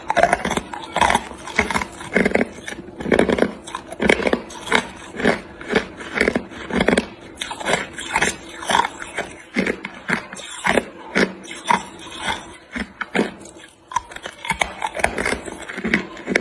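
Hard clear ice cubes crunched and chewed between the teeth, a run of sharp crunches about one or two a second, with a short pause near the end.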